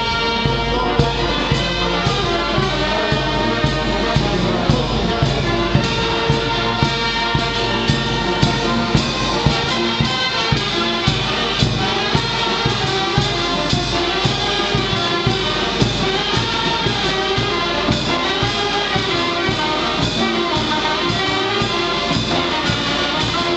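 Brass band of saxophones, tuba and other brass playing a lively tune live, over a steady oompah bass and percussion beat with a sharp accent about every two-thirds of a second.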